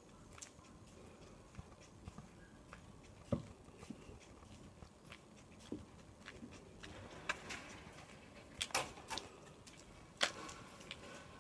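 Faint footsteps and scuffs of someone walking on asphalt, with irregular short clicks and taps, a few sharper ones in the last few seconds.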